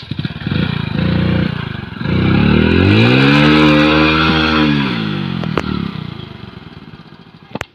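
Hero Splendor Plus motorcycle's small single-cylinder four-stroke engine revving as it pulls through mud. After a couple of short blips, the engine note climbs in pitch, holds, drops back, and then fades as the bike moves off.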